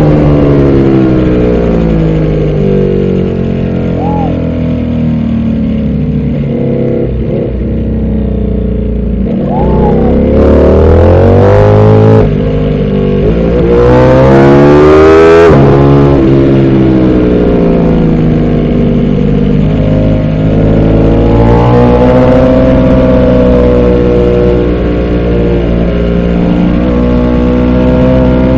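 Ducati Panigale V4 R's V4 engine under race load. It rises in pitch as it accelerates, drops sharply at upshifts about twelve and fifteen seconds in, and falls back as it slows for corners, with loud wind rush at top speed.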